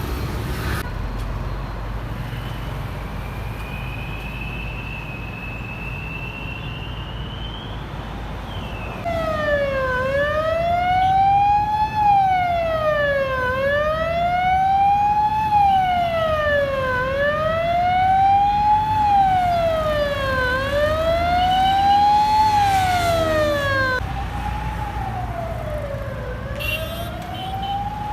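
Emergency vehicle siren wailing, slowly rising and falling in pitch about every three and a half seconds, over a steady rumble of road traffic. The siren comes in about a third of the way through, is loudest for some fifteen seconds, then carries on a little fainter.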